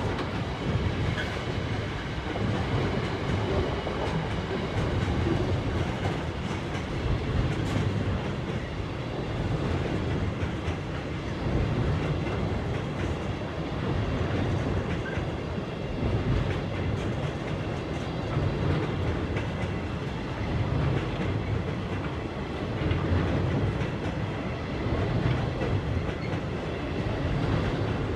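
Intermodal freight train of container flat wagons rolling steadily past. Its wheels rumble and clatter on the track in swells every second or two, with no let-up.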